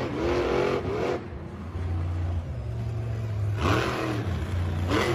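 Monster truck engine revving in bursts, its pitch rising and falling in the first second, again at about three and a half seconds and near the end, with a steady low rumble between.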